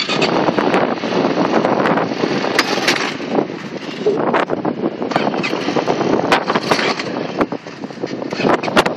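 Quad bike engine running, heavily buffeted by wind rumble on the microphone, with frequent sharp pops and crackles.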